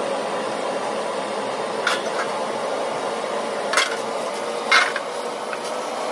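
Steady hum of a commercial kitchen's ventilation, with a few short knocks and clatters as a plastic tub and utensils are handled on a stainless-steel counter, the sharpest at about two, four and five seconds in.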